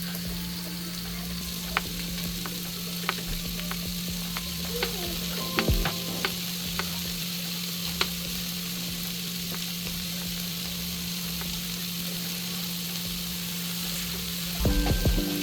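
Food sizzling in a hot pot on the stove, with scattered sharp clicks of a utensil against the pot and a louder clatter near the end. A steady low hum runs underneath.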